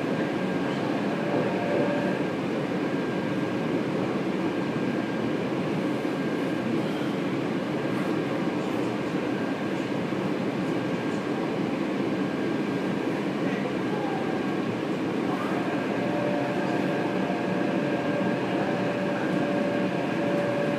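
Running noise of a Taipei Metro train heard inside the carriage while it travels between stations: a steady rumble with a thin, steady high whine. A second, lower steady tone joins in the last few seconds.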